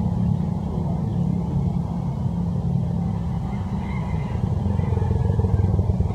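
A motor engine running steadily nearby, a continuous low rumble.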